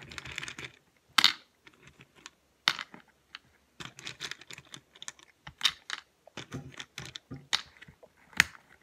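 Plastic pill organizer compartment lids being worked open with the fingers: a series of irregular sharp clicks and snaps, a few of them louder than the rest.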